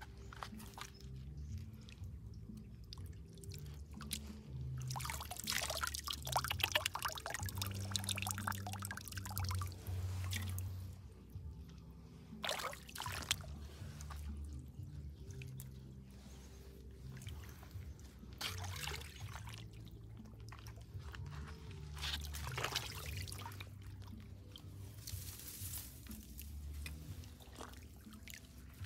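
Hands scooping and stirring through shallow pond water, with water pouring and dripping off them in irregular bursts; the busiest splashing comes about five to eleven seconds in, with shorter bursts later.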